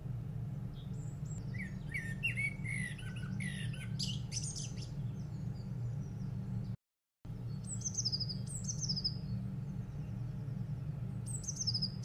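Recorded bird song: a European robin's varied, high warbling phrases for a few seconds, then, after a brief break, a different small bird's short high trills, each falling in pitch, repeated several times. A steady low hum runs underneath.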